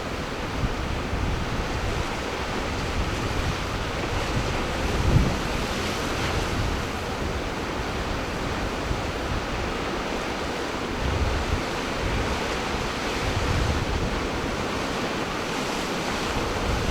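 Ocean surf washing steadily, with gusts of wind buffeting the microphone, the strongest about five seconds in and near the end.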